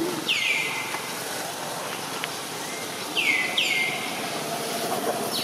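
A bird calling: two pairs of quick whistled calls, each sliding down in pitch and ending on a short held note. The first pair comes about half a second in and the second about three seconds in, over steady outdoor background noise.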